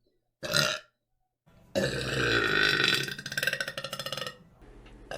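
A girl's short burp, then after a brief silent gap a long, loud burp lasting about two and a half seconds that breaks into a rattle toward its end.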